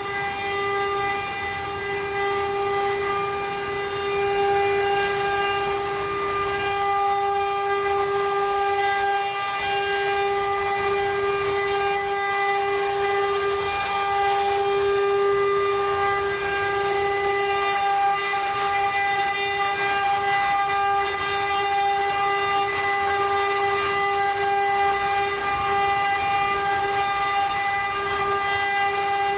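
CNC wood-carving router's spindle running with a steady high whine that holds one pitch throughout, over a hissing noise.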